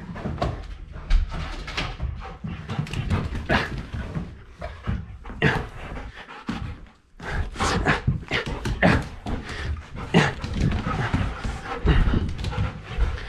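A dog making excited play noises: short yips, whines and barks with panting. Under them is a run of quick knocks and scuffles.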